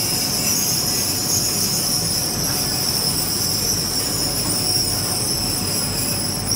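Automatic laser fabric-cutting machine running: a steady high-pitched hiss and whine over a low mechanical rumble.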